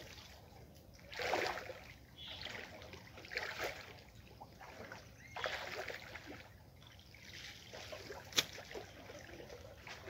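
Muddy river water sloshing and splashing in irregular bursts as people wade and grope by hand below the surface, with one sharp click a little over eight seconds in.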